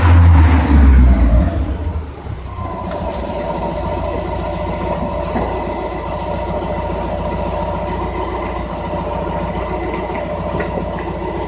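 Mazda MX-5's four-cylinder engine heard through its exhaust: the revs drop away within the first two seconds, and it settles into a steady idle.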